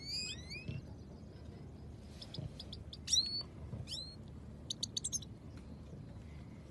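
Caged goldfinches singing in short separate phrases: quick upward-sweeping chirps, and two fast runs of short twittering notes.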